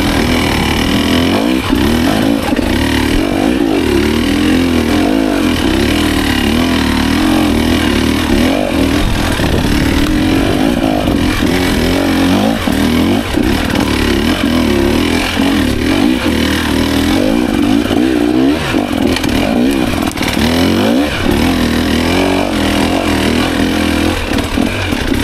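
KTM EXC 300 TBI single-cylinder two-stroke engine running at low to middling revs under a rider, its pitch rising and falling constantly as the throttle is worked on and off.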